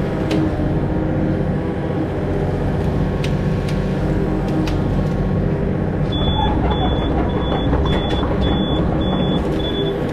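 Mini excavator's diesel engine running steadily while the machine clears ground, with a few sharp knocks. In the second half a series of short high beeps comes about twice a second.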